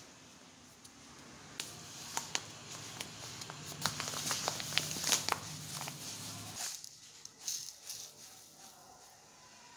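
Plastic food packet crinkling and rustling as it is handled, with many small crackles, busiest around the middle. Near the end it gives way to a softer patter of dry broken-wheat grain being poured from a jar into a plastic cup.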